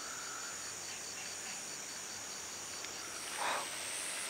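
Night insects such as crickets chirping steadily in high thin tones, one of them pulsing about six times a second until about three seconds in. A brief scuff near the end.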